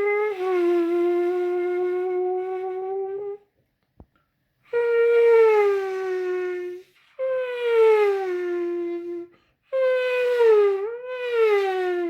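A person imitating Formula 1 car engines with their voice: a long held note, then three shorter ones, each starting high and sliding down in pitch like a car passing by.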